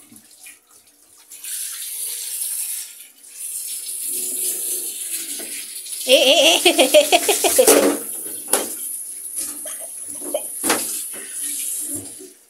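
Water running from a handheld shower head onto a cat being washed in a bathtub, a steady hiss that starts about a second in. It is broken by a couple of sharp knocks in the second half.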